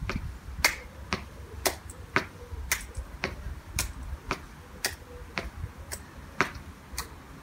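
Hands clapping in a steady rhythm, about two sharp claps a second, as part of a seated knee-and-clap exercise.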